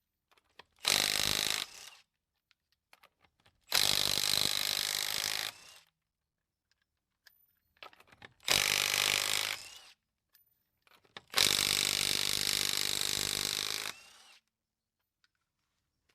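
Impact wrench with a 19 mm socket spinning the lug nuts off a car wheel: four loud bursts of one to two and a half seconds each, separated by short pauses.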